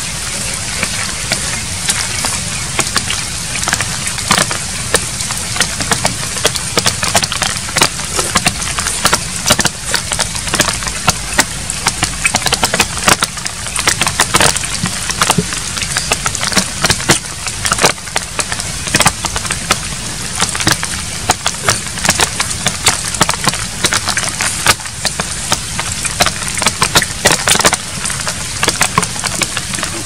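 Close-up eating sounds of a man chewing steamed climbing perch: many irregular sharp clicks and smacks of chewing, over a steady low background noise.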